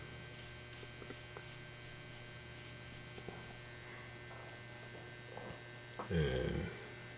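Steady low electrical mains hum with a few faint light ticks, and one short, louder low sound about six seconds in.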